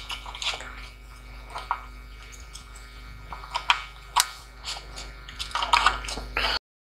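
Irregular clicks, taps and light knocks of a bare laptop motherboard being handled and turned over on a foam mat, the loudest cluster coming a little over halfway through, over a steady low hum. The sound cuts off suddenly near the end.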